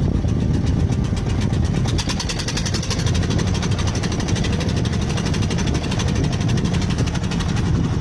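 Farm tractor's diesel engine running steadily with a rapid, even clatter.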